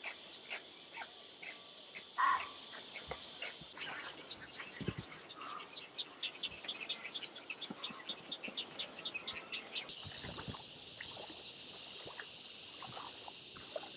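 Faint outdoor ambience: a steady high insect chorus with scattered animal calls, including a short louder call about two seconds in and a rapid pulsing call of about four notes a second in the middle. The background changes abruptly twice, as if separate recordings are spliced together.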